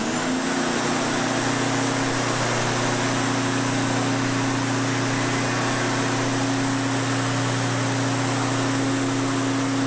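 Gardena corded electric push lawn mower's motor and blade spinning up at the very start, then running at a steady pitch. It runs unloaded over a bare floor, cutting no grass.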